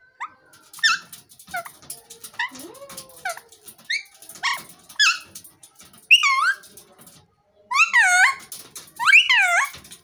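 Alexandrine parakeet calling: a run of short, sharp chirps about twice a second, then three louder, longer swooping squawks near the end.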